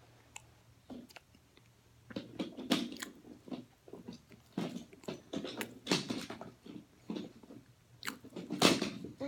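Close-up biting and chewing of oven-baked cornstarch chunks: a run of crisp crunches that starts about two seconds in, the loudest near the end.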